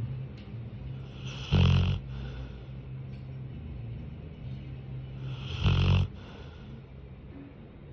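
Sleeping retriever dog snoring: two loud snores about four seconds apart, with softer low breathing between them.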